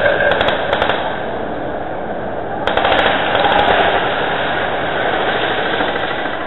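Airsoft guns firing in rapid bursts: one burst in the first second and another about three seconds in, over steady background noise.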